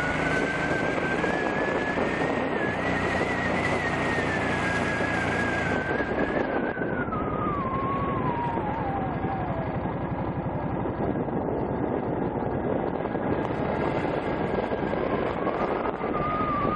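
Motorcycle riding, heard through a head-worn camera: a steady rush of air noise with a high engine whine that falls in pitch over a few seconds midway as the bike slows, then rises again near the end.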